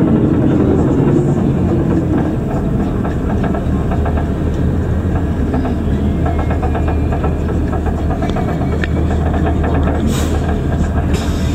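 Shuttle bus driving, heard from inside the cabin: a steady low engine hum under road rumble, with scattered light rattles.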